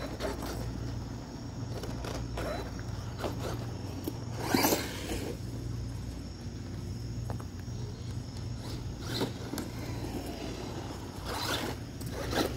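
Electric RC monster truck driving in short runs: bursts of motor whir and tyres scrabbling over pavement and grass, the loudest about four and a half seconds in, over a steady low hum.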